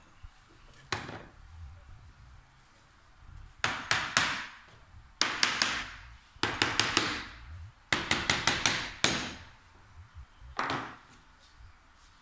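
Hammer striking a wooden canvas frame in quick runs of several taps, each blow ringing briefly. A single blow comes about a second in and another near the end.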